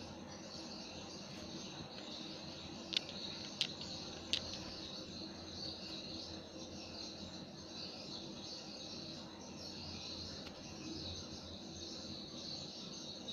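Crickets chirping steadily in a continuous high-pitched chorus. Three sharp clicks come about 3 to 4.5 seconds in, a little over half a second apart.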